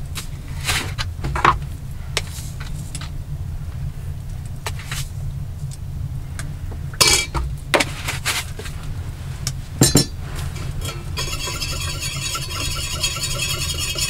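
A metal spoon clinking against a steel mug and food packaging being handled, with sharp clicks scattered through. Near the end come a few seconds of rapid, ringing metallic scraping, like a spoon stirring in the mug, over a steady low rumble.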